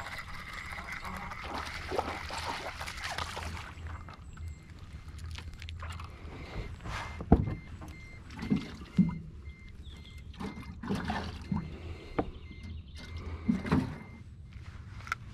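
Jacket sleeve rustling against the camera, then a string of knocks and thumps as a crappie and its jig are swung into the boat and handled. The sharpest knock comes about seven seconds in.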